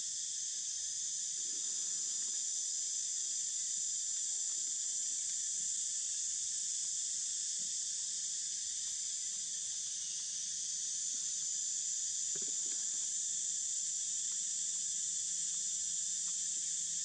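Steady, high-pitched chorus of forest insects.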